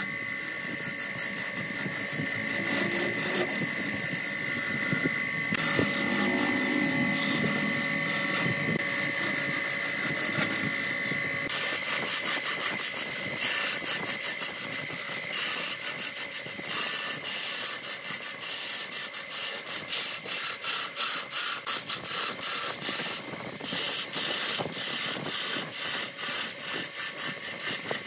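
A wood lathe spinning a spindle while a hand turning tool cuts into it: scraping, chattering wood cutting over the lathe's steady high whine. About twelve seconds in, the cutting becomes more broken and stuttering.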